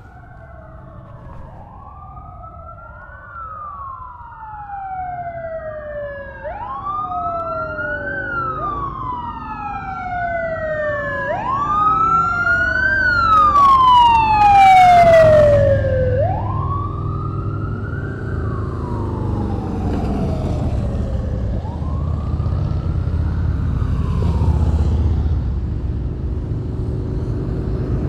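Several police sirens wailing out of step with one another, each rising quickly and falling slowly, loudest about halfway through as a motorcade's escort passes. Vehicle engines rumble and tyres hiss on the wet road as the sirens fade into the distance.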